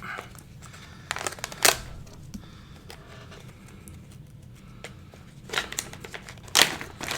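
A pack of mechanical keyboard switches being opened by hand: light plastic rustling broken by a few sharp clicks and snaps, the loudest two about 1.5 seconds in and near the end.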